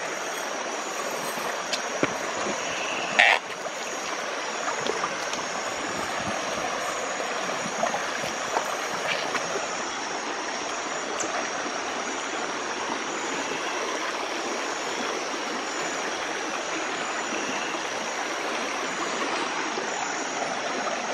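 River current rushing steadily, with night crickets chirring in a steady high band above it. A couple of sharp knocks sound in the first few seconds, the loudest about three seconds in.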